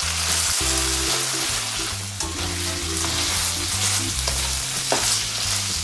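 Crayfish, onion and carrot sizzling in hot oil in a frying pan while being stirred with a spatula.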